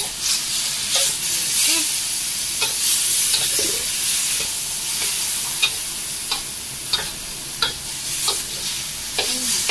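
Spaghetti sizzling in a hot metal wok while a spatula tosses and stir-fries it, with repeated clinks and scrapes of the spatula against the pan over a steady frying hiss.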